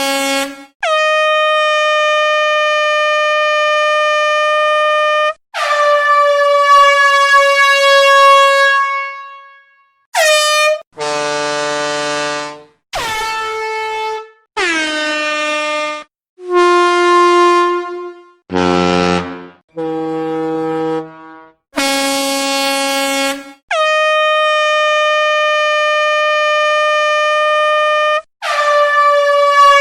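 Air horn sound effects, a dozen or so separate blasts one after another with short gaps between them. They differ in pitch and length: a few long steady blasts of about four seconds, several short ones, and some that droop in pitch as they fade.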